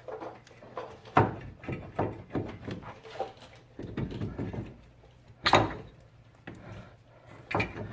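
Metal knocks, clunks and scrapes as the old front wheel hub assembly is worked loose and pulled out of the steering knuckle, with two louder knocks, about a second in and about five and a half seconds in.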